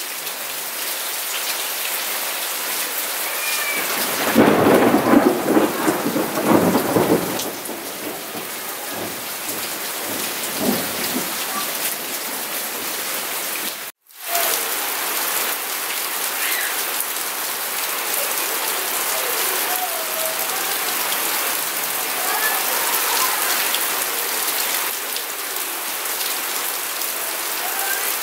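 Steady rain, with a roll of thunder swelling up about four seconds in and rumbling for some three seconds. The sound cuts out for an instant about halfway, then the rain goes on.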